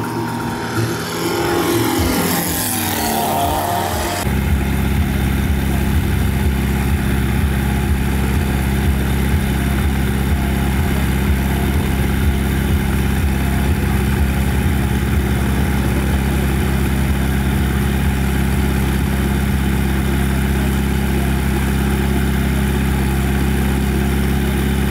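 A shifting, sweeping sound that cuts off abruptly about four seconds in, followed by an engine idling steadily at an even pitch.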